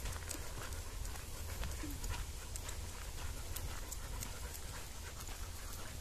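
American bulldog panting as it walks on a leash, at an even level.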